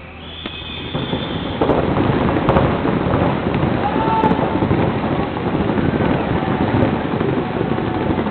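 A high horn-like tone of about a second and a half signals the start of a paintball point, then many paintball markers open up in a dense, loud clatter of rapid shots.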